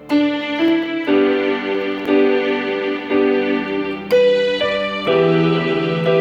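Electronic keyboard played with sustained piano-like chords over a held bass note, a new chord struck about once a second.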